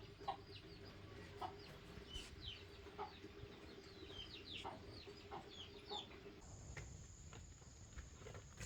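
Chickens clucking faintly, with many short high cheeps through the first six seconds. About six and a half seconds in, a steady high insect whine starts.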